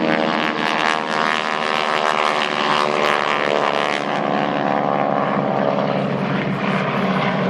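Propeller-driven airplane engine passing overhead, loud and steady, its pitch sliding slowly down as it goes by.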